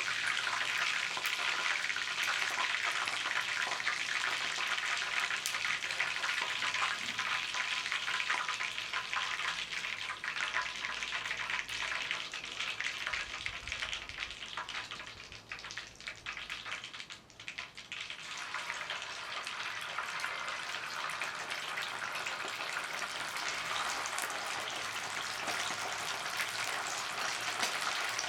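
Chicken wings sizzling and crackling in a hot pan, dropping away for a few seconds past the middle and then returning.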